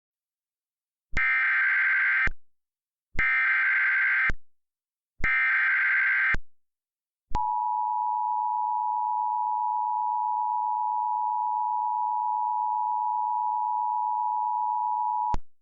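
Emergency Alert System header: three buzzy digital data bursts of about a second each, a second apart, followed by the steady two-tone EAS attention signal held for about eight seconds, which marks the start of an emergency alert.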